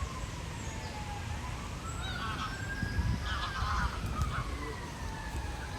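Emergency vehicle siren wailing in a slow sweep: pitch falls, rises to a peak around the middle, then falls again. About three seconds in, a brief cluster of goose-like bird calls sounds over it.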